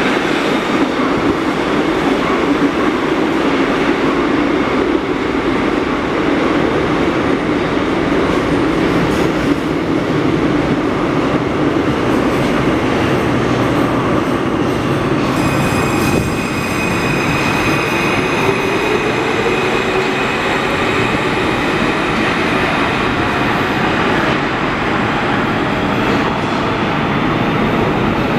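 Alstom AS2002 metro trains running through an underground station with a steady rumble. About halfway through, a high steady whine joins and a lower tone rises in pitch for a few seconds, as a train's motors take up speed.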